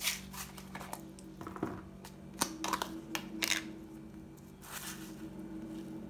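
Off-camera handling of a container of fennel seed: a string of short rustles and clicks, heard over a steady low hum.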